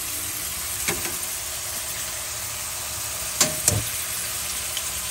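Melted garlic butter poured into a hot frying pan over cornstarch-coated fish fillets, sizzling steadily. There are light knocks about a second in and twice a little after three seconds in.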